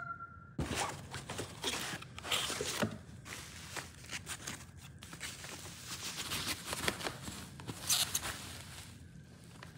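Rustling and scattered clicks of packaging being handled and opened, with a louder rustle about eight seconds in.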